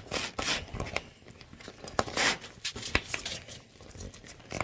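A stiff zipper being worked along a cargo bag, with crinkling and rustling of the bag's fabric and irregular clicks and scrapes as it is tugged along. It is not the greatest zipper, and it goes slowly.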